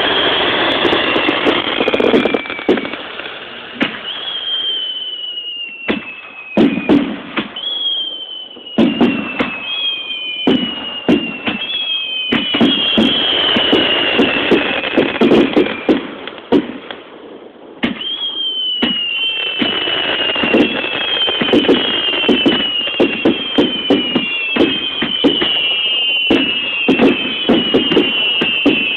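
Starmine fireworks display: a rapid series of bangs and crackles from launches and bursts, with many whistling shells each giving a falling whistle, several overlapping near the end. The sound dips briefly just before the middle, then comes back dense and steady.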